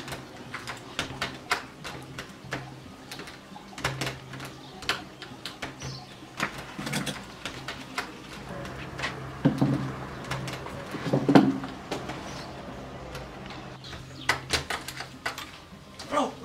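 Scattered light clicks and knocks from hands working at a door and moving things, over a steady low hum. A few louder, low cooing sounds come near the middle.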